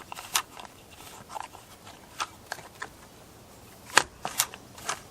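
Irregular light clicks and ticks from a chainsaw's recoil starter pulley being handled and wound with a new paracord starter rope, the sharpest click about four seconds in.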